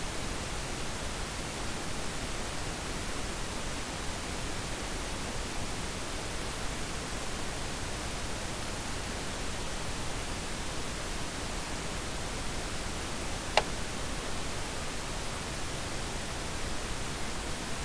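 Steady, even hiss of recording noise with no speech, broken once by a single short click about thirteen and a half seconds in.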